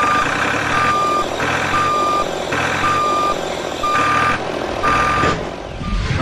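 Vehicle reversing alarm beeping about once a second, six even beeps of one steady tone, over a steady rumble.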